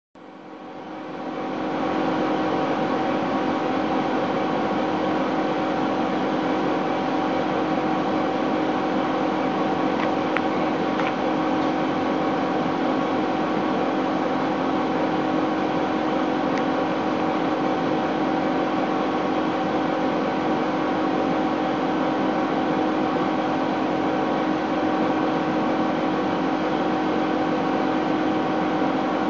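Laser engraver running while it engraves a cork sheet: a steady mechanical hum with a few held tones, fading in over the first two seconds.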